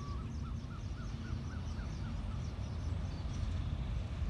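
A bird calling a quick run of short, arched whistled notes, about four a second, that fades out about halfway through, over a steady low outdoor rumble.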